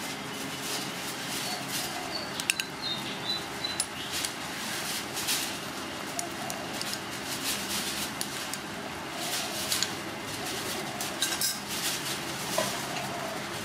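Metal ladle and spoon clinking and scraping against a metal cooking pot as a curry is stirred, in irregular knocks over a steady background noise.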